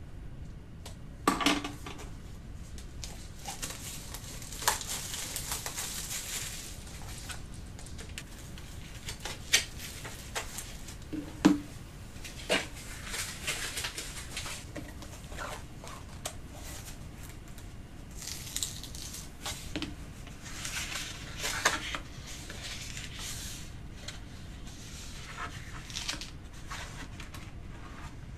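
A new hardbound sketchbook being unwrapped and handled: plastic shrink-wrap crinkling and tearing in several bursts, with sharp taps and knocks of the book and tools on the tabletop, and pages being opened.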